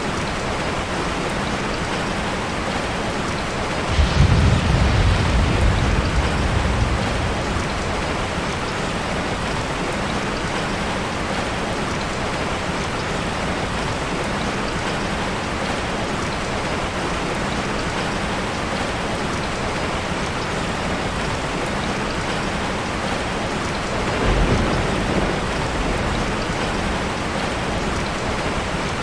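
Steady rain falling, with a thunder clap about four seconds in that rumbles for about three seconds, and a second, softer rumble of thunder near the end.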